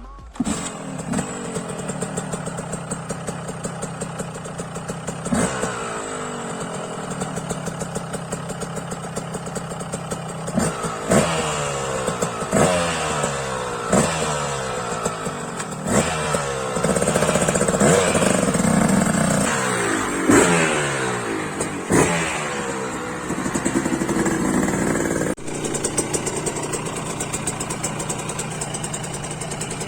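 KTM 125 motorcycle engine idling, then revved in a series of quick throttle blips, each falling back toward idle, with a few seconds of held higher revs in the middle. Near the end it drops back to a steady idle.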